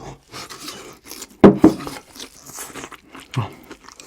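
Crisp breaded cheese-stuffed pork cutlet crunching and crackling as it is broken into, a run of short crunches and scrapes. A short, loud pitched vocal sound comes about a second and a half in, and a smaller one near the end.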